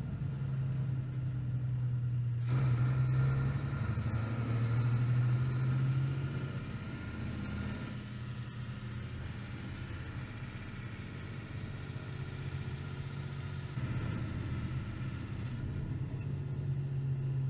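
Heavy lorry engine running with a steady low hum. It grows louder about two and a half seconds in, eases after about six seconds, and swells again near the end.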